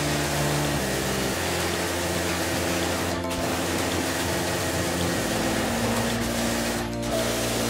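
Pressure washer spraying water onto a car's paint, a steady hiss that breaks off briefly twice, about three seconds in and near the end. Soft background music with held chords plays underneath.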